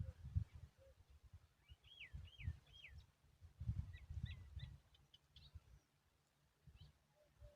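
Faint bird calls: three hooked whistled notes, each rising then falling, about two seconds in, then a quick run of short sharp notes a little later, over an uneven low rumble.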